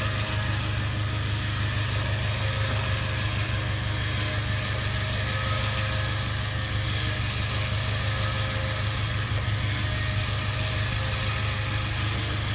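A Mitsubishi 4x4's front bumper winch and engine running steadily with a fast, even mechanical rattle while the winch cable is worked to pull the stuck vehicle.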